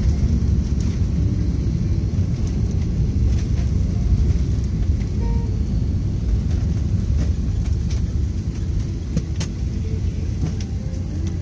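Airliner cabin rumble during the landing roll-out, with the ground spoilers deployed, heard from a window seat. It is a loud, steady low rumble that eases slightly as the aircraft slows, with a few faint rattles.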